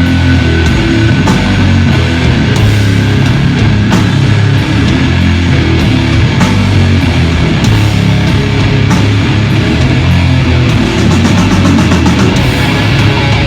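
Doom metal band playing live and loud: heavy distorted guitars and bass with drums and cymbal hits, and a quick run of drum hits near the end.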